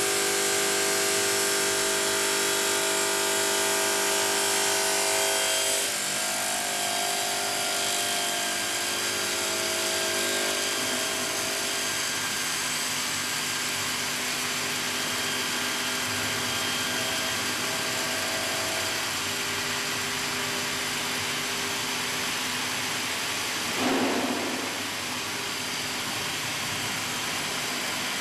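HLSQ-450 automatic bridge saw running its blade through a stone slab: a steady machine whine with several held tones. The tones shift about six seconds in, and there is a brief louder swell near the end.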